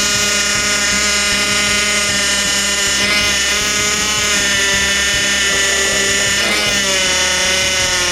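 Honda Accord engine running with a steady, high-pitched whine from its newly fitted power steering pump; the pitch dips briefly about three seconds in and again near seven seconds. The owner puts the whine down to the pump starving for fluid.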